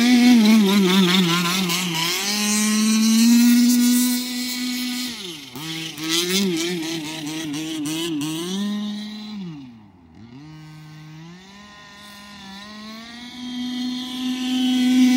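Losi 5IVE-T 1/5-scale RC truck's two-stroke gas engine running, its pitch rising and falling with the throttle. About ten seconds in it drops to a quieter low idle, then revs back up near the end.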